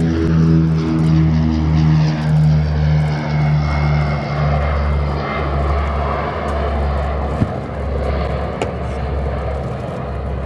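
The Rolls-Royce Dart turboprops of a NAMC YS-11 airliner passing overhead. A low, multi-toned propeller drone sinks slightly in pitch and fades out after about three seconds, leaving a broad engine rumble.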